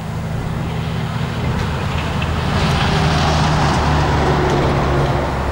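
Steam locomotives 5917, a NSWGR 59 class 2-8-2, and R766, a Victorian R class 4-6-4, working hard as they haul a train, growing louder as they approach.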